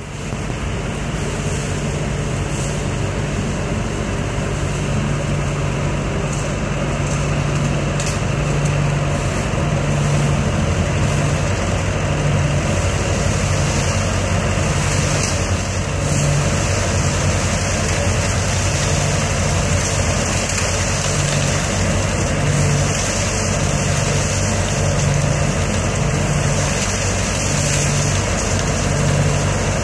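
ODB 650 leaf vacuum running steadily, sucking leaves through its wide intake hose with a loud rush of air. A low engine hum pulses about once a second through the second half.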